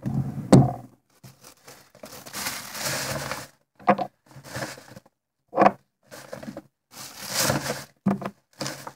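Paper rustling and crinkling in separate bursts as a white paper gift bag is handled and opened, with a loud thump about half a second in.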